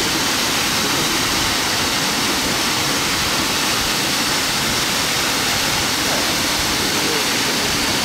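Water of Minoh Falls, a tall narrow waterfall, pouring down a rock face: a steady, even rush of falling water that does not change.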